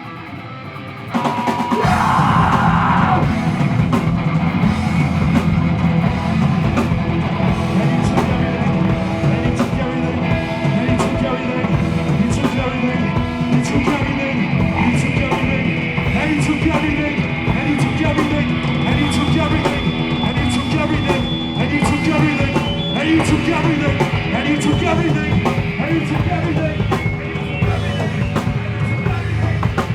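Live rock band playing loud, with drum kit and guitars. After a brief quieter moment, the full band comes back in about a second in and plays on steadily.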